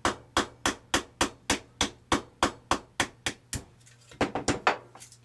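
Metal tool tapping out the rear pin of a Glock pistol frame: about a dozen sharp, evenly spaced taps, roughly three a second, then a quick flurry of lighter taps near the end.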